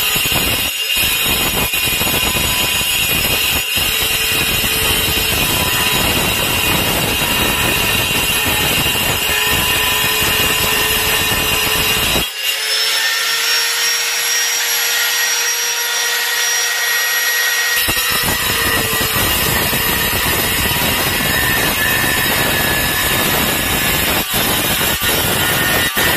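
Handheld angle grinder with a diamond blade cutting porcelain tile: a steady, loud grinding hiss over a thin whine. For about five seconds near the middle, the deep part of the sound drops away, leaving only the high whine and hiss.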